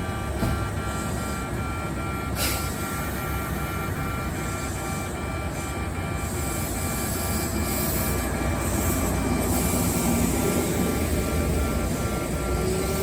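Electronic level-crossing alarm ringing in a steady 'pe-pe' rhythm of about two beats a second, over a low rumble. From about halfway in, an approaching Kintetsu electric train's running noise grows louder, with a rising whine near the end.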